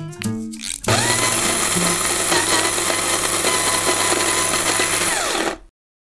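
Electric coffee grinder switched on: its motor whine rises quickly, runs steady and loud for about four and a half seconds, then winds down and stops abruptly. Just before it starts, the last plucked guitar notes of the music ring out.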